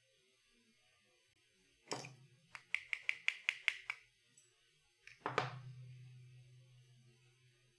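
Small metal lock parts and tools being handled on a workbench during a lock's disassembly: a knock, a quick run of about eight sharp clicks, then a heavier knock that leaves a low ringing hum dying away over about two seconds.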